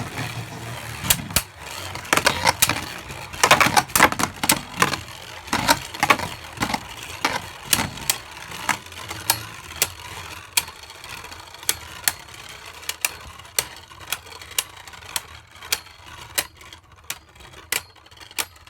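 Two plastic Beyblade spinning tops battling in a plastic stadium: a steady whirring scrape of the tips on the stadium floor with sharp clacks as the tops strike each other. The clacks come thick and fast in the first half, then space out to one or two a second.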